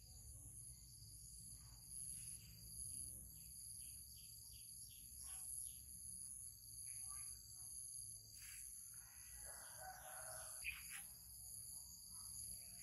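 Faint rural outdoor ambience: a steady high insect drone with scattered faint chirps, and a distant bird call lasting about a second and a half, some nine seconds in.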